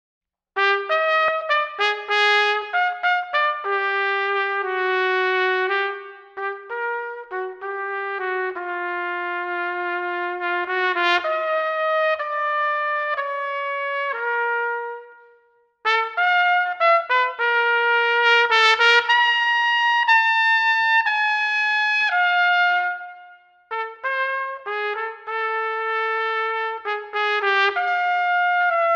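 Unaccompanied C trumpet playing a slow melodic line of separate notes that step up and down. It comes in about half a second in, breaks off briefly for a breath midway, and dips again about two-thirds of the way through.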